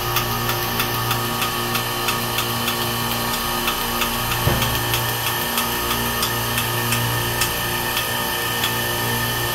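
Steady hum of refrigeration compressor machinery running, with a very regular light ticking about three times a second. A short low thump about four and a half seconds in.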